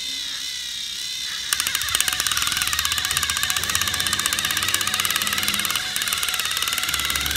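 Battery motors of two Thomas & Friends TrackMaster toy trains whining as they drive head to head against each other, joined about a second and a half in by a fast, even clicking of gears and wheels that runs on steadily.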